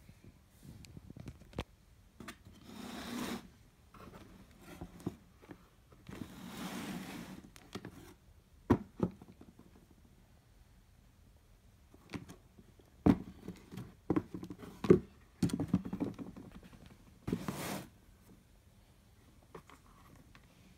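Handling noise from leather boots and their cardboard shoebox being moved by hand: short rustles and scrapes with a few sharp knocks and taps scattered through.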